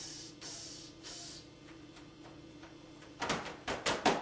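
Improvised percussion by a person: breathy hissing sounds, then a short quiet gap, then a quick run of sharp slaps or clicks starting about three seconds in.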